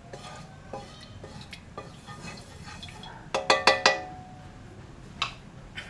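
Wooden spoon knocking against a stainless steel wok, the wok ringing with each hit: a few light knocks, then a quick run of about four sharper strikes about three and a half seconds in, and one more near the end.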